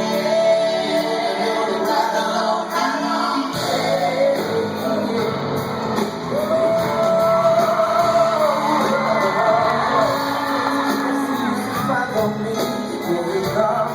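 Live rock band playing with singing, heard as a concert audience recording. The bass comes in fuller about three and a half seconds in.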